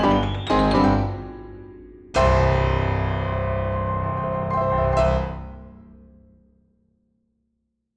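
Piano music: a few quick notes, then a loud chord at about two seconds that rings on and fades out to silence near the end.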